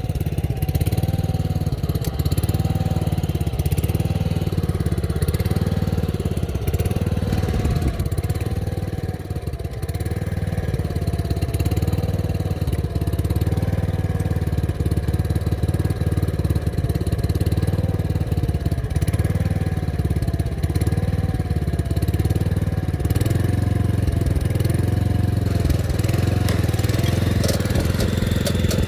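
Small engine of an Asia walk-behind cultivator running steadily under load as it tills a furrow and throws up a ridge, its pitch wavering slightly.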